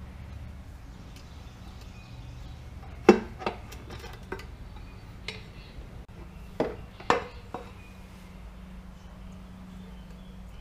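Aluminium crankcase cover of a Honda Rubicon 500 engine being worked off the engine by hand: a handful of sharp metal clinks and knocks, the loudest about three seconds in, the rest scattered over the next four seconds, over a steady low hum.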